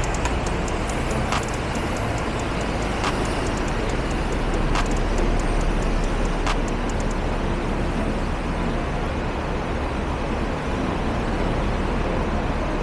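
Steady road traffic noise from buses and cars, with a few faint sharp clicks about every second and a half in the first half.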